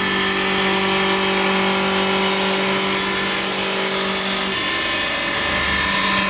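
CNC wood turning lathe with a rotary carving spindle running steadily: a motor whine made of several steady tones over the noise of the cutter working the wood.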